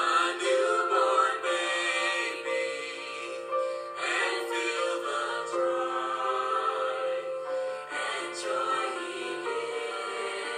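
Background music with a singing voice carrying the melody.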